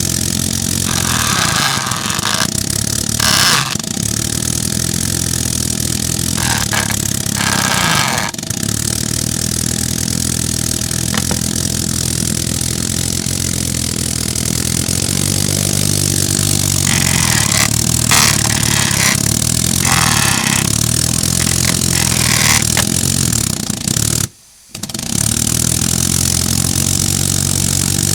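3D-printed compressed-air piston engine running, a steady rapid hum from its strokes whose speed rises and falls partway through, with several short bursts of air hiss. The sound cuts out briefly near the end.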